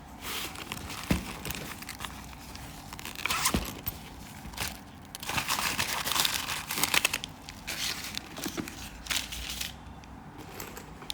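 Packaging being unwrapped by hand: irregular bursts of crinkling and tearing, with a few sharp clicks.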